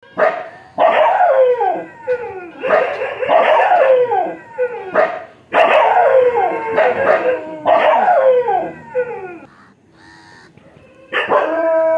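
A dog barking and howling in a string of drawn-out calls, each sliding down in pitch, coming in bouts about a second long with a short pause near the end before it starts again.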